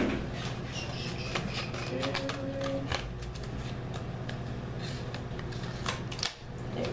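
Scissors snipping through stiff plastic packaging while it is handled, giving a run of irregular sharp clicks and crackles.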